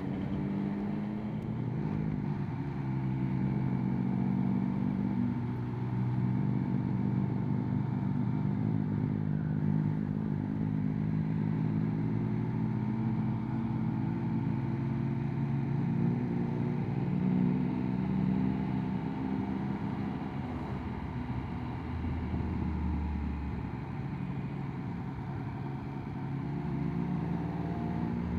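Triumph Speed Triple 1200 RS inline-triple engine on its standard exhaust, running steadily while riding, its pitch rising and falling gently with the throttle. It is heard from a microphone inside the rider's helmet.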